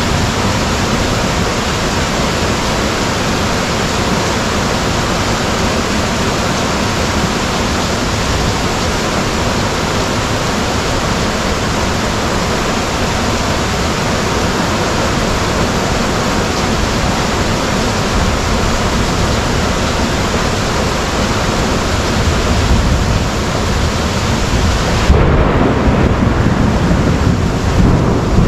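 Heavy rain pouring steadily, with a low rumble of thunder rolling in over the last several seconds.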